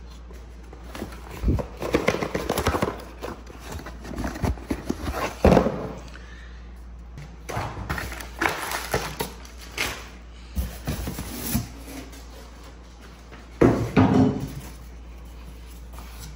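Cardboard packaging and paper being handled: intermittent rustling and scraping with a few sharper knocks, the loudest about five seconds in and again near the end.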